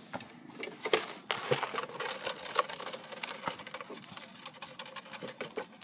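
Handling noise: scattered clicks and taps, with a short burst of rustling about a second and a half in.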